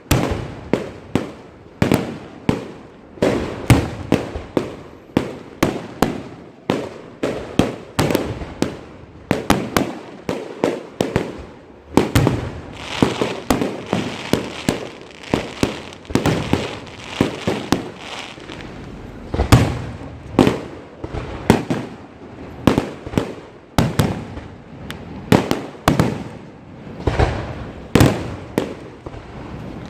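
Fireworks going off continuously: a dense run of sharp bangs, several a second, each ringing away briefly, with a stretch of crackling about twelve to eighteen seconds in.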